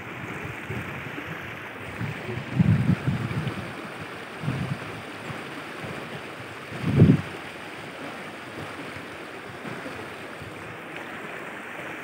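Shallow river water running steadily over and between rocks, heard as an even rushing. A few low gusts of wind buffet the microphone, the strongest about seven seconds in.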